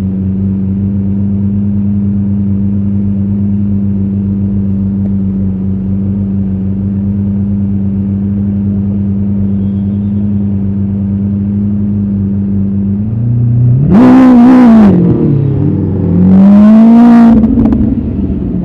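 A vehicle engine idles steadily, then is revved hard twice, about 14 and 17 seconds in, each rev rising and falling in pitch and much louder than the idle.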